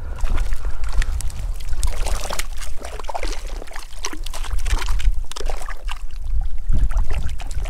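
Wind buffeting the microphone in a steady low rumble, over short splashes and sloshing of water as a hooked brook trout thrashes at the surface near the shore.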